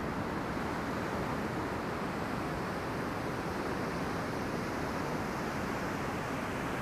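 Steady rush of ocean surf, waves breaking and whitewater washing toward the beach, with wind rumbling on the microphone.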